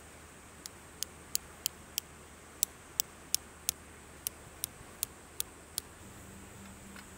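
Hammer driving a tent peg into grassy ground: about fourteen sharp taps, roughly three a second with two short pauses, then stopping.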